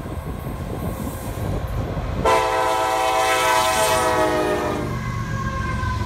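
Freight train's diesel locomotive rumbling past and sounding its horn in one long blast starting about two seconds in; the horn's pitch drops as the locomotive goes by, and it cuts off about a second before the end, leaving the rumble and rattle of the freight cars rolling past.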